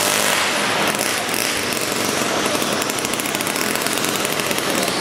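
Small combustion engine of an RC pulling tractor running at high revs, a loud, steady, rapid buzzing, while the tractor is held by its rear wheels.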